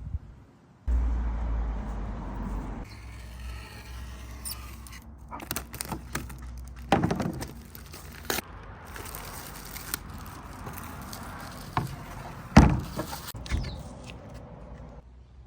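Handling noises from unpacking: scattered knocks and clicks with some rustling, the loudest knock well past halfway. A low rumble, like the microphone being handled, fills the first couple of seconds.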